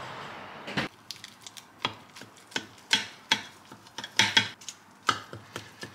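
A large kitchen knife cutting a baked egg bake into portions in a ceramic baking dish, the blade knocking and scraping against the dish in a run of sharp, irregular clicks, a couple a second.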